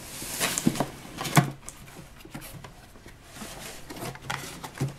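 Cardboard toy box being opened by hand: rustling and scraping of cardboard with scattered clicks and knocks as the plastic parts inside are handled, the sharpest knock about a second and a half in.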